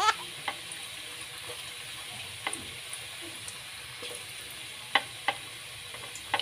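Sweet potato sticks deep-frying in hot oil: a steady sizzle broken by a few sharp pops.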